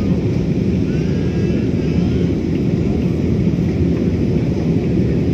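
Steady cabin noise of an airliner in its climb after takeoff: a dense, even rumble of engines and rushing air heard from inside the passenger cabin.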